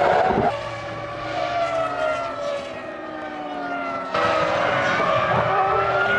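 Formula One cars' V10 engines running at high revs, their pitch falling as they slow or pass. About four seconds in, the sound jumps abruptly louder to an engine rising in pitch as it accelerates.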